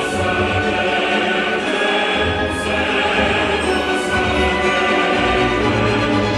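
Orchestral film score with a choir singing sustained, held chords.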